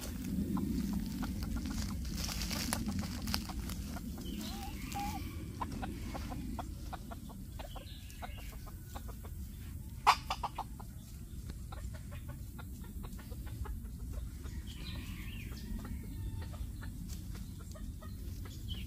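Chicken clucking now and then, with many small crackles of dry leaf litter and one sharp click about ten seconds in.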